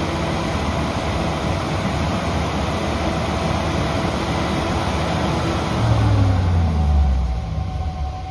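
Generac 48 kW natural gas generator engine running steadily, then shutting down about six seconds in, its low pitch falling as it winds down.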